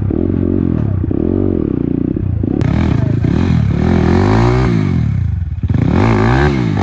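250cc dirt bike engine revving up and down in repeated throttle bursts, each rise in pitch quickly falling back, as it is ridden over a rough trail.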